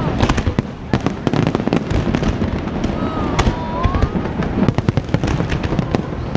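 Fireworks going off in quick succession: a dense stream of bangs and crackling pops, with a brief wavering whistle about three seconds in.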